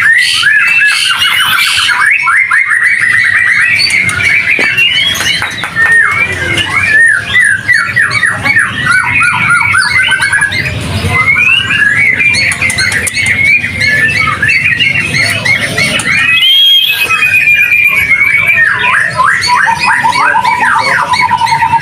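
Caged white-rumped shamas (murai batu) singing: rapid, varied runs of high chirps and trills, several songs overlapping. Near the end one bird holds a fast trill on a single lower note.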